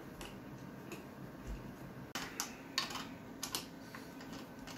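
Light, irregular clicks and taps of plastic and metal from a Herman Miller Aeron chair's armrest as it is slid up and down in its bracket with the adjustment nut loosened. The clicks bunch together in the middle.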